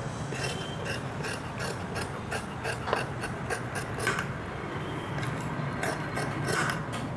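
Tailor's scissors snipping through folded fabric along a marked line, a steady run of crisp cuts at about three snips a second.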